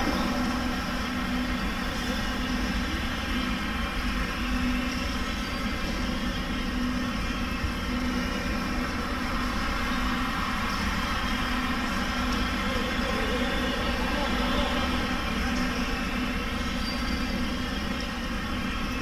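Steady mechanical hum, with a low tone that swells and fades every couple of seconds.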